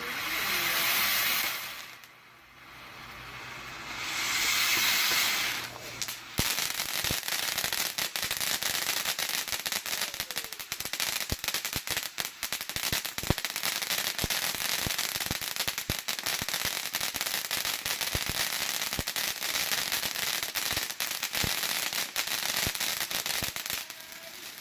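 TNT Southern Heat fountain firework going off: two surges of loud hissing spray in the first six seconds, then a dense run of rapid crackling pops, the fountain's crackling-flower effect.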